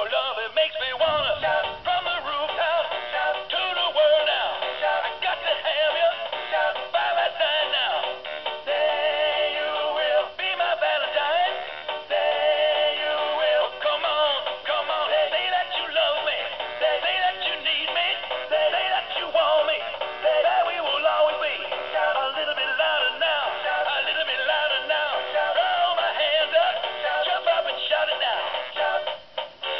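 Animated plush Valentine's puppy toy singing a song through its small built-in speaker: a recorded voice singing over backing music, thin with no bass. It starts suddenly as its paw is pressed.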